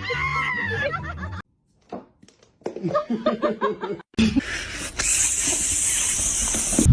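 Background music with a steady beat that cuts off, then after a short silence a person laughing for about a second and a half. At about four seconds a cut brings in a steady, even hiss-like noise.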